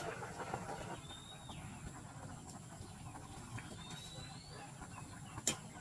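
A bird calling with thin, high whistles that rise in pitch, twice, over a low steady rumble, with a single sharp click near the end.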